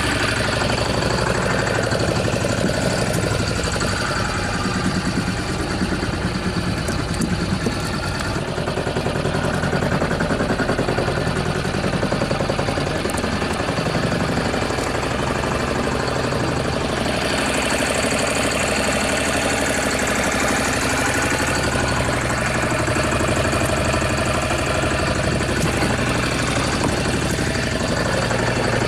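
A fishing boat's engine running steadily with an even, rapid pulsing hum.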